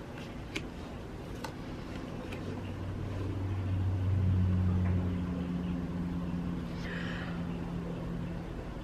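A low motor hum that swells to its loudest about four seconds in, then gives way to a steadier, slightly higher hum that fades out near the end.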